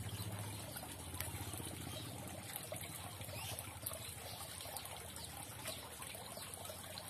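Steady trickle of running water, typical of an aquaponics system's water flow, with a low steady hum and a few faint clicks.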